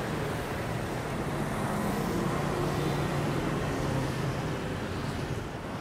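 Street traffic: a steady wash of passing vehicles, with an engine's low drone growing a little louder about two seconds in and fading again near the end.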